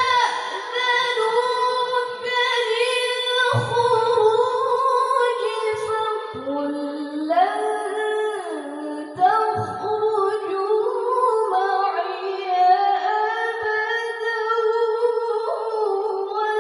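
A young female qari's voice through a microphone, reciting the Quran in the melodic tilawah style: long held notes with ornamented turns and glides in pitch, starting new phrases about three and a half and nine seconds in.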